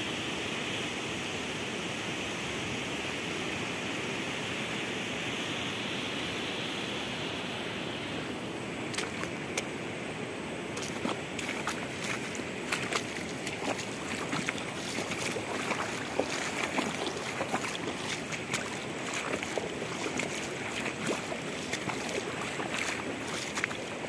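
Steady rush of flowing river water. From about eight seconds in it drops a little and short, irregular clicks and knocks come in over it.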